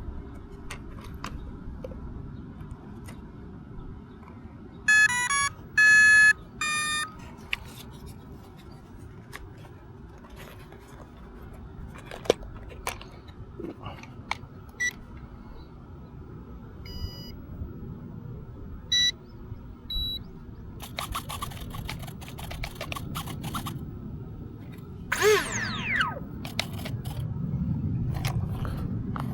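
Electronic beep tones: three loud short groups of notes about five seconds in, then a few fainter single beeps, typical of an RC jet's speed controller arming when its battery is connected. Scattered clicks and a brief falling whine near the end.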